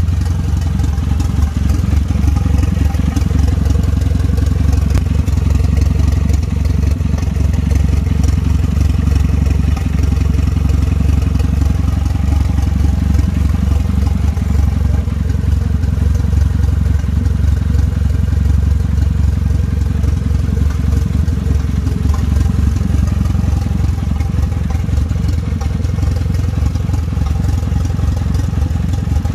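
Renault F4RT 2.0-litre turbo four-cylinder, swapped into a Twingo GT, idling steadily with no exhaust fitted, warming up for the first time. The engine is not yet mapped and runs on the Twingo GT's ECU.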